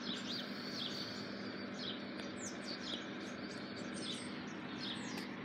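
Small birds chirping in short, scattered calls, over a steady low hum.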